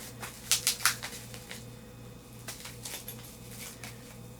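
Handling noises as a small packaged item is brought out: a few sharp rustles and clicks about half a second to a second in, then fainter scattered ticks, over a steady low hum.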